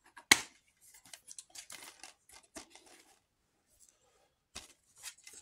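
A plastic Blu-ray case snapping open with one sharp click, followed by faint rustling and small clicks as the case and its discs are handled.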